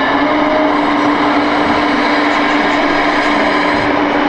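Sound module of a radio-controlled Hitachi Zaxis model excavator playing a steady diesel engine sound through its small speaker while the machine works.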